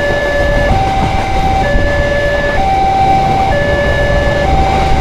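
Level-crossing warning alarm sounding two alternating tones, a lower and a higher one, each held just under a second, over the low rumble of a passenger train passing the crossing.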